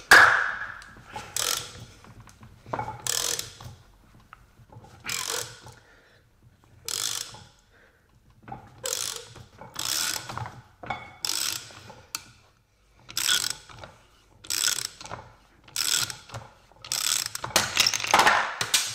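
Ratchet wrench clicking in repeated strokes, a short burst of clicks every second or so, as it turns the forcing screw of a bearing puller pressing a stuck differential side bearing off its carrier.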